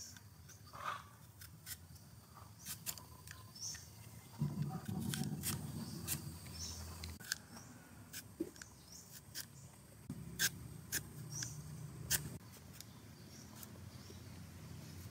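Y-shaped vegetable peeler shaving thin slices off a raw potato: a run of short, sharp scrapes and clicks. Faint high chirps come and go, and a low rumble rises twice, about four seconds in and again about ten seconds in.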